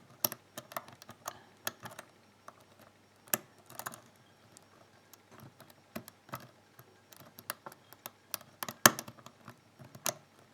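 Lock pick and tension tool working the pins of an Asec 5-pin euro cylinder: a scatter of small, irregular metallic clicks as pins are pushed and set. The pins give a serrated-like feedback rather than that of standard pins.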